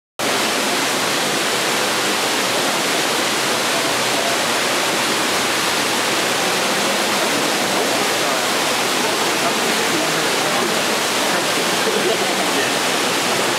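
Steady rushing noise like falling water, unchanging throughout, with a faint murmur of voices underneath.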